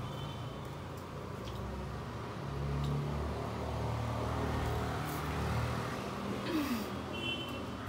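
Low engine rumble of a road vehicle, growing louder about two and a half seconds in and easing off again.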